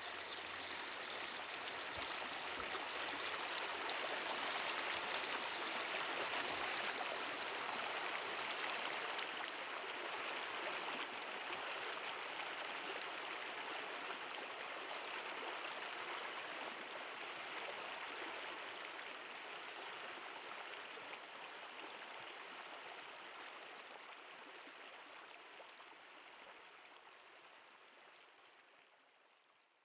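River water running steadily as a rushing hiss, which fades out gradually over the last ten seconds or so.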